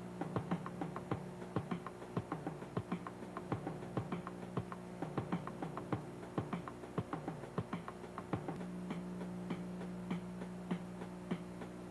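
A steady low hum, changing pitch once past the middle, under a run of quick, irregular clicks and ticks.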